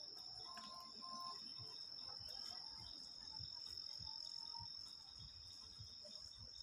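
Faint, steady, high-pitched drone of insects, with a few soft low thumps.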